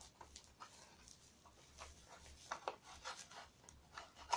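Faint, irregular scraping and rustling as a small cardboard box and its packaging are handled and opened.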